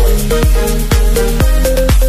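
Background electronic music with a steady beat, about two beats a second, over held synth notes.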